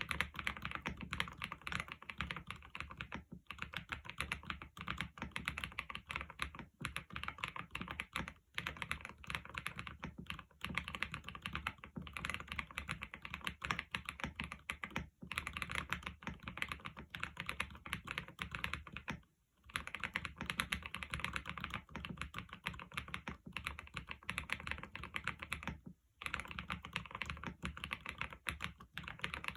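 Epomaker TH80 Pro V2 mechanical keyboard with Wisteria linear switches being typed on in fast, continuous runs of keystrokes, broken by a few short pauses.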